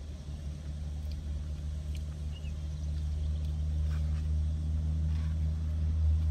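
Low, steady engine hum of a motor vehicle that grows gradually louder, with a few faint scrapes of a plastic spoon in a chili cup.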